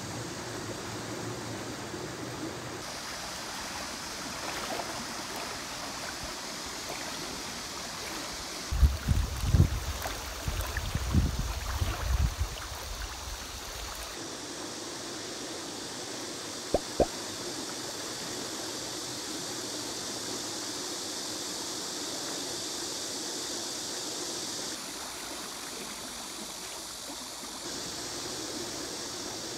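Steady rush of river rapids flowing. About nine seconds in come several seconds of loud, uneven low rumbling, and a little later two sharp clicks.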